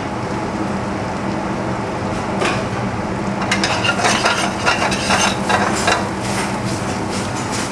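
Mixed vegetables sizzling as they hit hot butter and garlic in a frying pan. From about two and a half seconds in, a steel spoon scrapes and clatters in the pan as the vegetables are stirred and tossed.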